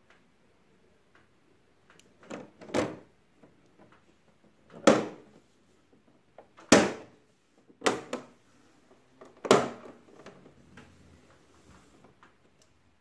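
Plastic cover of a wall-mounted LG Dual Inverter AC indoor unit snapping into its clips as it is pushed into place: a series of about seven sharp clicks and knocks, the loudest about five and seven seconds in.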